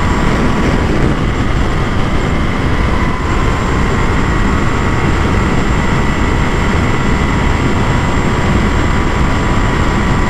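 Loud, steady wind rush on a helmet-mounted camera at about 190 km/h. Beneath it, the Yamaha Ténéré 700's crossplane parallel-twin engine is running hard near top speed.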